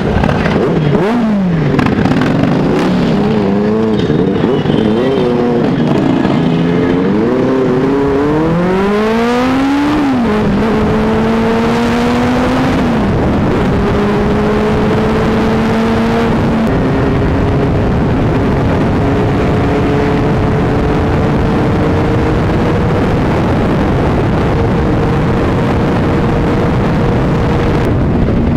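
Benelli 600i inline-four engine with an Ixil aftermarket exhaust, heard from the rider's camera: uneven low-speed revving at first, then a hard acceleration about eight seconds in, its pitch climbing and dropping at each upshift. It settles into a steady, slowly rising note at cruising speed, with wind rushing over the microphone.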